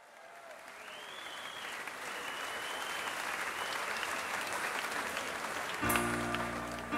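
Audience applause fading in at the start of a live music recording. About six seconds in, the music starts with held chord tones.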